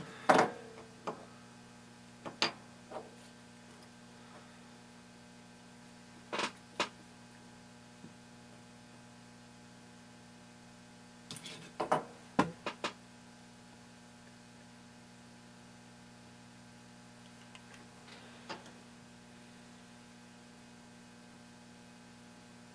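Steady low electrical hum with a handful of light clicks and taps, a quick cluster of them about halfway through, from a soldering iron and hands working on a flight controller's header pins.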